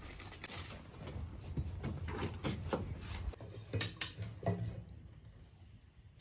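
Embers crackling in a clay tandoor oven: scattered sharp clicks and pops over a low rumble that fades about halfway through.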